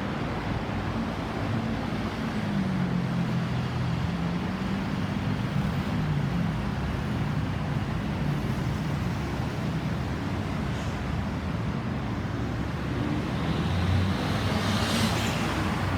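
Road traffic: vehicle engines running with a low, wavering hum, and a vehicle passing close, loudest about a second before the end.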